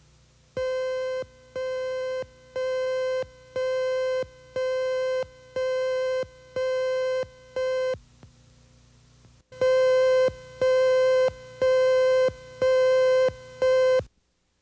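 Countdown leader beep tone on a TV news videotape: a buzzy beep repeating once a second, about eight beeps, a short pause, then five louder beeps that cut off just before the end.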